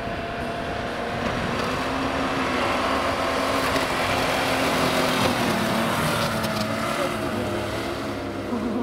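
Mitsubishi Pajero Sport's engine running steadily under load, with its tyres spinning and churning through snow.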